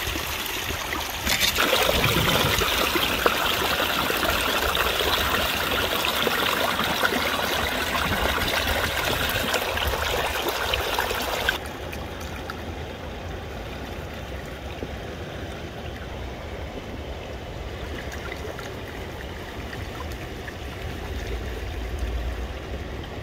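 River water rushing through a sluice box with gravel being scooped in at its head. About 12 seconds in it cuts abruptly to a quieter, duller flow.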